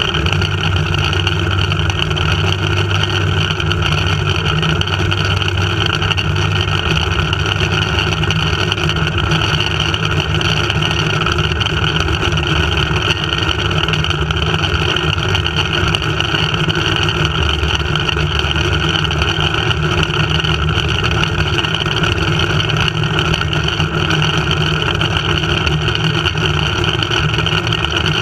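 Steady loud rushing and whirring of a flying-fox trolley running along its cable at speed, with wind on the trolley-mounted camera's microphone. The noise holds evenly throughout, without a break.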